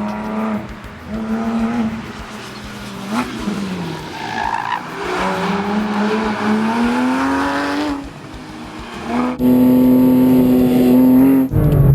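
Porsche 991 GT3's naturally aspirated flat-six engine driven hard: the revs drop about three seconds in, climb steadily for several seconds, dip, then run loud and high near the end.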